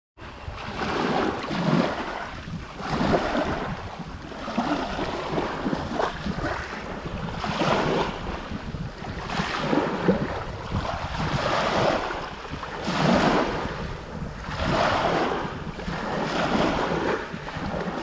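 Small waves breaking and washing up over a pebble shoreline, a surge every second or two, with wind rumbling on the microphone.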